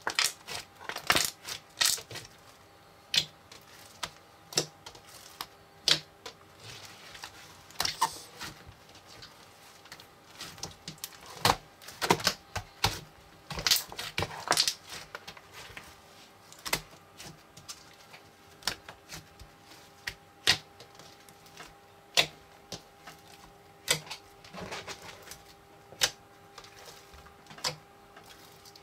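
Lime-green foam-ball slime being squeezed and kneaded by hand, crackling with irregular sharp clicks and pops, busiest around the middle.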